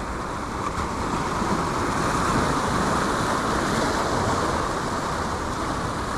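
Sea surf washing and breaking over the rocks of a seawall: a steady rushing that swells slightly a couple of seconds in.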